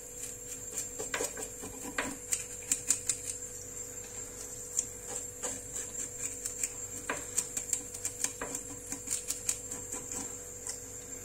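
Fish scaler scraping the scales off a common pandora: quick, irregular runs of light clicks and ticks.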